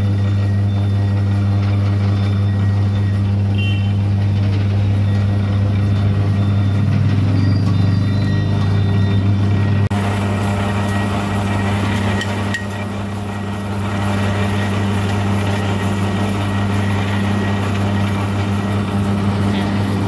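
Steady low hum of a motor vehicle engine running nearby, over street traffic noise; the hiss of the street gets brighter about ten seconds in.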